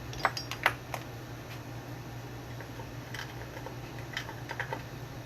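Scattered light clicks and taps of small metal hardware and hand tools being handled while a potentiometer is fitted into the bass body: a few near the start and a quicker run in the second half, over a steady low hum.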